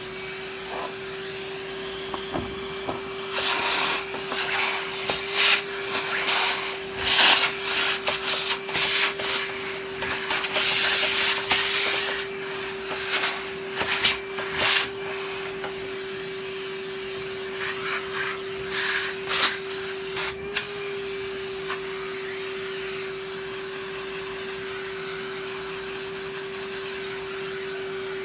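Vacuum cleaner motor that has just been switched on and runs at a steady pitch. From about three to twenty seconds in, irregular louder rushing surges come and go over it, as the nozzle is worked over a surface; after that it runs steadily.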